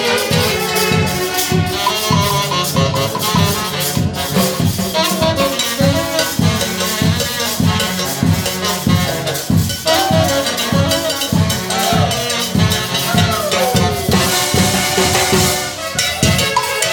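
A live dance orchestra playing: a steady drum beat of about two strokes a second with cowbell-like percussion under a wind-instrument melody, which slides down in pitch near the end.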